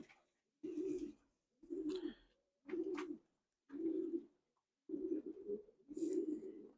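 Racing pigeons cooing, a short low coo repeated roughly once a second, about six times.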